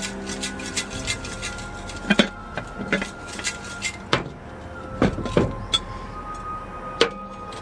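Paper name slips rattling and rustling inside a hollow zombie-head prop as it is shaken to draw a name, with irregular sharp knocks and clinks of the head against hands and a glass tabletop.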